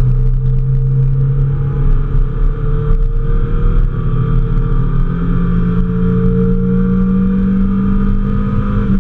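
Mazda Miata's four-cylinder engine heard from inside the cabin, pulling hard under acceleration, its pitch climbing slowly and steadily.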